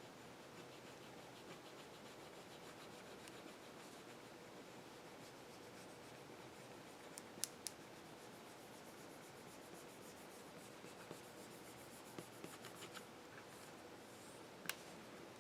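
Near silence with faint rubbing and a few small, sharp clicks: two in quick succession about halfway through and one near the end. These are the sounds of hands handling and pressing a thin plastic polarizer film onto an LCD panel.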